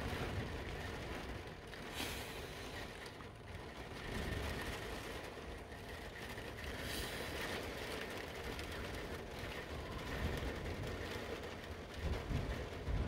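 Rainstorm heard from inside a van: a steady low rumble of rain and wind, swelling in a few gusts.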